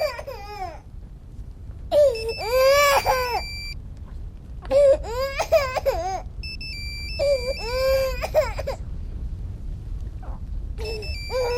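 Baby crying: a run of high, arching wails about a second or more each, with short gaps between, over a low steady rumble.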